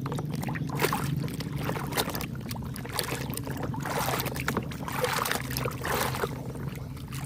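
Water splashing and sloshing in irregular bursts as a muddy toy vehicle is washed by hand. A steady low hum runs underneath.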